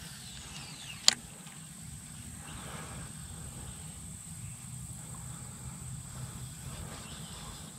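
Faint outdoor ambience: a steady high-pitched insect drone, crickets or similar, with a low hum underneath. A single sharp click about a second in.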